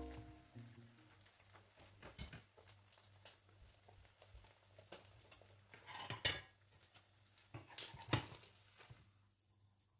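Faint crackling of egg and butter frying in a nonstick pan, with a few scrapes and knocks of a spatula against the pan, the strongest about six and eight seconds in.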